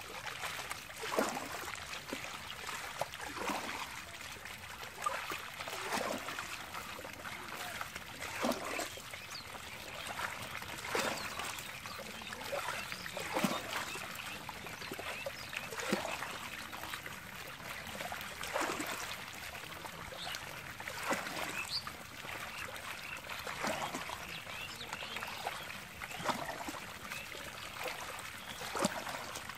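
Water trickling steadily through a gap in a mud bank, with a sharp splash every second or two as small fish are scooped up by hand.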